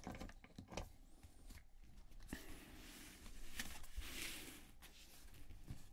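Quiet handling of unboxing items: scattered soft taps and clicks, with a rustle about four seconds in.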